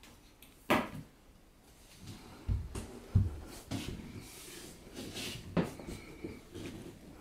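A cat pawing at a cabinet door and its handle, knocking against it: a sharp click about a second in, two low thumps around the middle, then scattered lighter knocks and taps.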